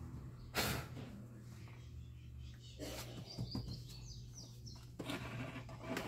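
Faint rustles and soft clicks from handling the parts of a disassembled fan motor, with a few short high bird chirps in the middle, over a low steady hum.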